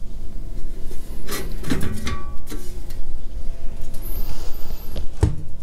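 Heavy tube-receiver chassis being handled and turned over on a bench: scraping and rubbing, with several knocks, the loudest about five seconds in.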